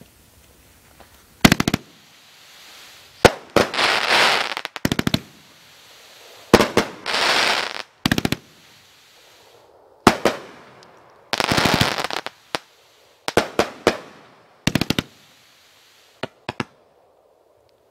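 World Class Fireworks 'Fast Food' 500-gram, 25-shot consumer cake firing shot after shot: sharp bangs, several followed by about a second of hissing crackle. The bangs come in irregular volleys and stop about a second before the end.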